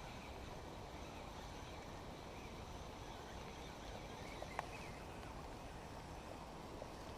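Steady outdoor noise of rain at the riverside, with one sharp click a little past halfway.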